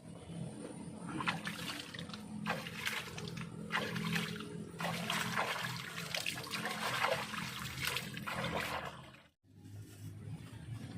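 Water splashing and rushing in irregular surges over a steady low hum, cut off abruptly near the end.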